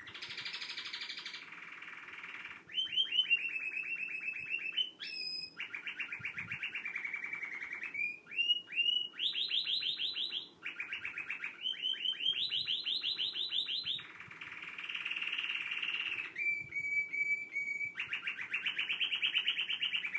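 Domestic canary singing a continuous song of rapid trills: each phrase is a fast run of one repeated note, and the song moves to a new phrase every second or two.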